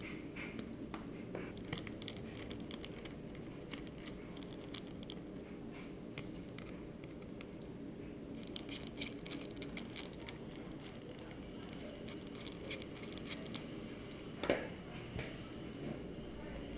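Small clicks and scrapes of a screwdriver tip working at the tiny screws in a Nokia Lumia 900's frame, the screwdriver too big for the screws, over a steady low hum. One sharper click near the end.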